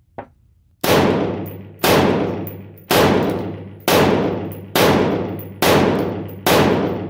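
Seven rifle shots from an AR-15-style rifle fitted with a Lantac Dragon three-chamber muzzle brake, fired at a steady pace of about one a second. Each sharp report is followed by a long ringing echo that fades out before the next shot.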